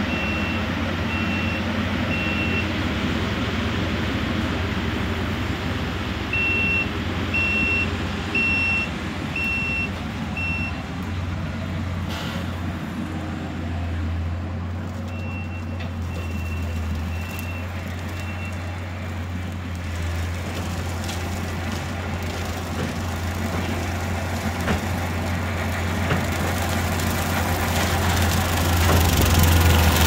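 Tracked skid steer running at a distance, its engine a steady low drone, with its backup alarm beeping about once a second in three separate runs as it reverses. The engine grows louder near the end as the machine comes closer.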